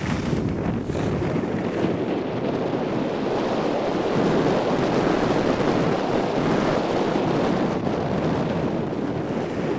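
Steady rushing wind noise on the microphone mixed with the hiss of skis sliding over packed snow during a downhill ski run.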